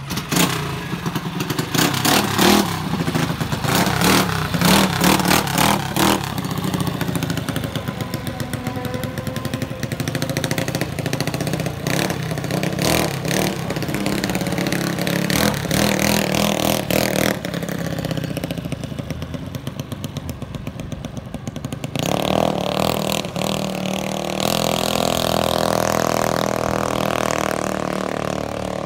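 A mini bike's small engine, spun over with a handheld starter box, catches straight away and revs in short sharp blips for several seconds, then runs on with its pitch rising and falling as the bike is ridden.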